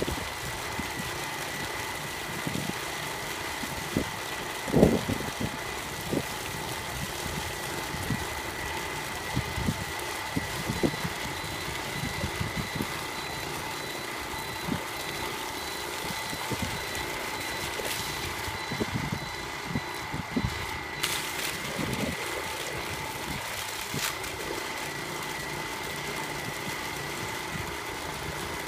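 Engine running steadily with a constant whine, with scattered brief knocks and handling noises over it.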